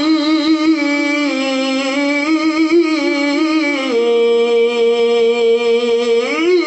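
A man's voice holding one long, ornamented melodic note in Quran recitation (tilawah), wavering quickly in pitch. About four seconds in it steps down to a lower held tone, then climbs again near the end.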